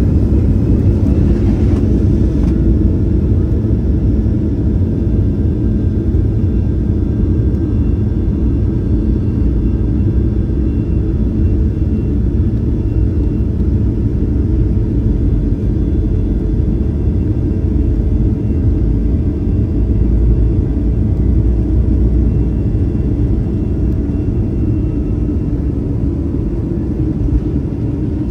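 Jet airliner's engines at takeoff thrust, heard from inside the cabin over the wing: a loud, steady deep rumble with a thin whine on top, as the aircraft accelerates down the runway and lifts off.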